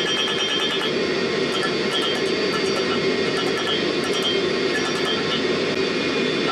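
Propane forge burner running with a steady rushing noise, with faint irregular ticks over it.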